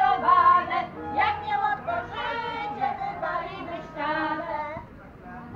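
Several women's voices singing a folk song together, a traditional wedding song, growing quieter near the end.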